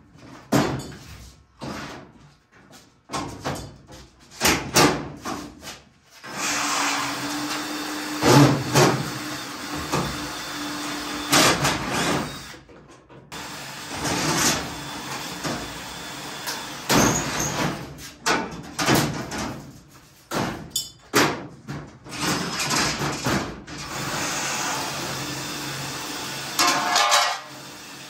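Cordless drill running in several long bursts against the aluminum body panels of a dirt late model race car, drilling out the panel fasteners, with sharp knocks and clatters of sheet metal in between.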